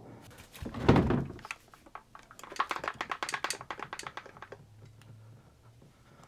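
Heavy metal impact-wrench gear housing handled and tipped by hand: a loud thunk about a second in, then a quick run of small clicks and rattles that dies away after about four and a half seconds.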